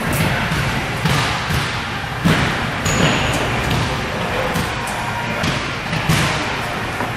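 Gym weight equipment knocking and clanking irregularly, a knock every half second to a second, over background music.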